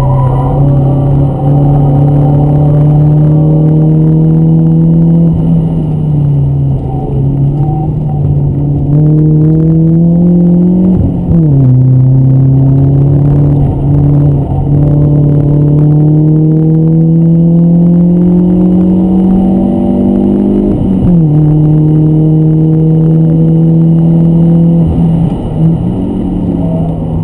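BMW 318ti Compact's four-cylinder petrol engine heard from inside the cabin, pulling hard on track. The revs climb steadily through a gear and fall sharply at two upshifts about ten seconds apart, with a brief easing of the revs about five seconds in and again near the end.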